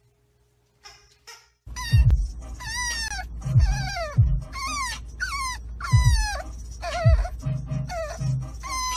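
French bulldog puppy crying: a rapid series of high whining cries, each falling in pitch, about two a second, starting about two seconds in, over the low steady rumble of a car.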